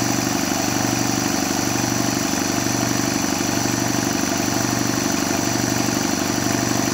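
Rebuilt Quincy 210 air compressor pump running steadily under load, pumping back up toward its unloading pressure.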